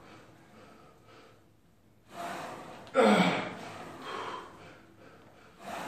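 A weightlifter's hard, forceful breaths while pressing a barbell overhead: a sudden loud exhale about three seconds in, with softer breaths shortly before and after it and another near the end.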